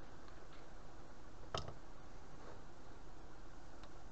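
Small steel bar stock handled on a bench vise: one light click about one and a half seconds in and a few fainter ticks, over a steady low hiss.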